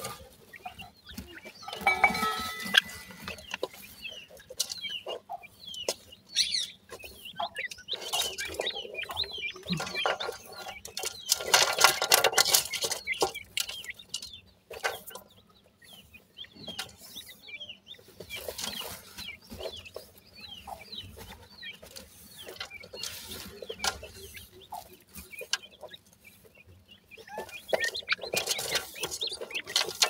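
Francolin chicks cheeping and chirping with many short calls, with louder rustling bursts of dry soil and grit as they scratch and peck in the dirt, the heaviest stretch about ten seconds in.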